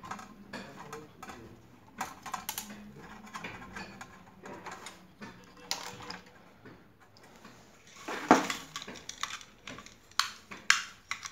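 Scattered light clicks, taps and metallic clinks from hands handling a sandwich maker's disc thermostat, wire leads and test probes against its metal heating plate and plastic housing. A louder clatter comes about eight seconds in, and a few sharp clicks come near the end.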